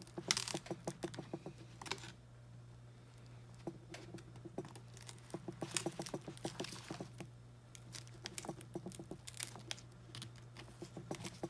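Faint crackling and clicking of shattered glass and screen layers as a broken iPad mini's display is pried loose by gloved hands, coming in flurries of small ticks. A steady low hum runs underneath.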